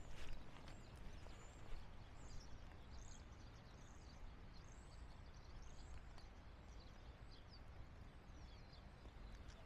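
Faint city ambience: a steady low rumble with small birds chirping in quick, high calls through the middle. There are a few sharp clicks near the start.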